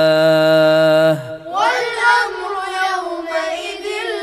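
Quran recitation: a man's voice holds the long final syllable of a verse and stops about a second in. Then a chorus of children's voices chants the same verse back in a higher pitch.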